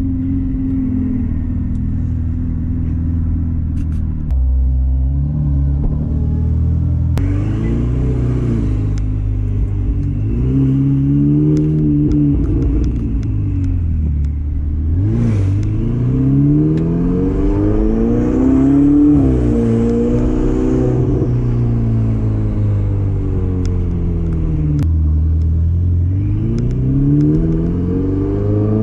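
Ferrari 488 Spider's twin-turbo V8 through a Capristo straight-pipe exhaust with mufflers and catalytic converters deleted. It idles steadily at first, then pulls away and drives at low speed, its note rising and dropping back several times.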